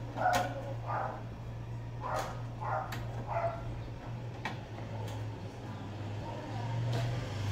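Electric stand fan's motor humming low and steady as its blade spins up, louder from about five seconds in and again near the end; the motor now runs on a newly installed capacitor. Over it, in the first few seconds, a series of short animal calls and a few sharp clicks.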